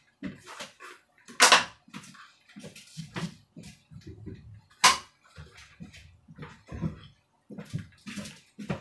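Irregular small knocks, clatters and rustles of dishes and utensils being handled in a kitchen, with two short, loud hissing scrapes about a second and a half and about five seconds in.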